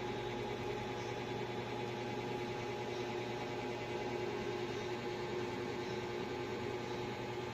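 Steady hum with a few held tones over an even hiss, unchanging throughout.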